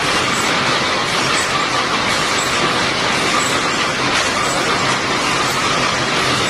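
Automatic welded wire mesh machine for chicken cages running, giving a steady, dense mechanical noise.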